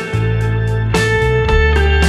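Instrumental music led by guitar, with sustained notes and new chords struck about once a second.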